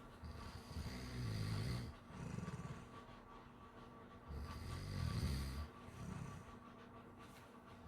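A sleeper snoring in a slow rhythm: two snores about four seconds apart, each a long rough snore followed by a shorter, quieter one.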